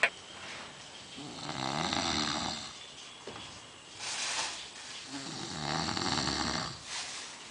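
A man snoring heavily with a saw-like rasp: two long snores about four seconds apart, with a shorter breathy sound between them.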